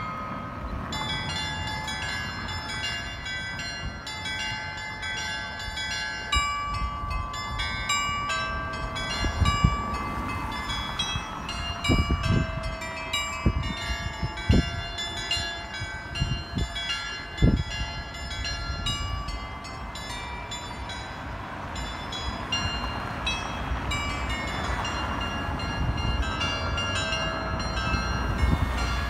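Carillon bells in a town-hall roof turret playing a tune, many overlapping bell strikes ringing on into each other. A low rumble runs underneath, with a few low thumps about midway.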